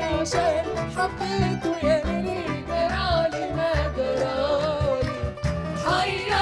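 Live Egyptian song: a male soloist sings a wavering, ornamented melody, backed by a choir and band over a steady beat.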